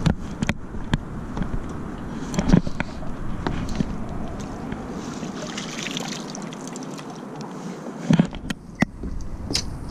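Knocks, clicks and thumps of handling on a wooden pier deck, with some water splashing, as a perch is landed with a landing net. Two louder thumps come about two and a half seconds in and near the end.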